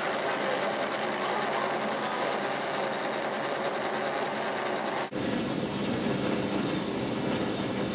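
Motor-driven drawing machines running with a steady mechanical sound; about five seconds in, a cut switches to another machine whose sound sits lower.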